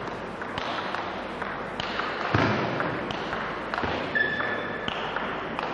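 Table tennis rally: the celluloid ball knocking off bats and table at about one hit every half second, echoing in a large hall.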